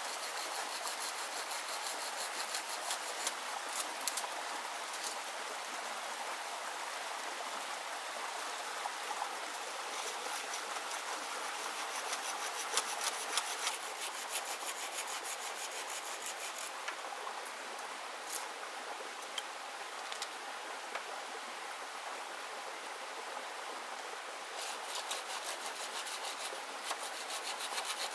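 Hand saw cutting through green bamboo poles, the blade rasping back and forth in steady strokes.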